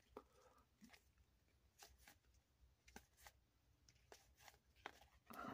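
Near silence with faint, scattered clicks of paper trading cards being flipped through one by one in the hands, over a faint low hum.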